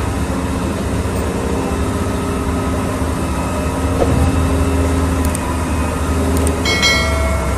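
Diesel engines of a large Caterpillar wheel loader and a rigid dump truck running steadily under load, a low, continuous drone, as the loader pushes a stone block out of the tipped dump body.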